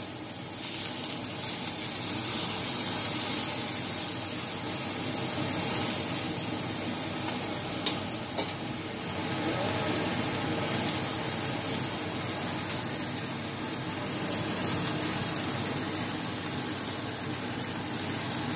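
Flour-coated pork chop sizzling steadily as it shallow-fries in oil in a nonstick pan. About eight seconds in there is one sharp click of the metal tongs against the pan as the chop is turned over.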